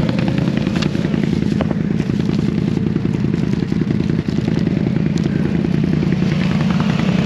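An ATV engine idling close by, a steady fast pulse, with a few clicks and rustles from a hard-shell storage case being opened and hand-warmer packets being handled.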